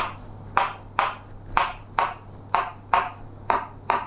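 A steady series of sharp clicks, each with a short metallic ring, about two a second in a slightly uneven short-long rhythm, nine in all.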